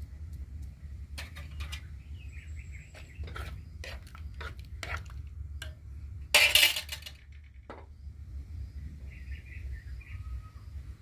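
A small spoon clicking and clinking against an aluminium cooking pot as turmeric is tipped in, with one loud burst of noise under a second long about six seconds in. A low steady hum runs underneath.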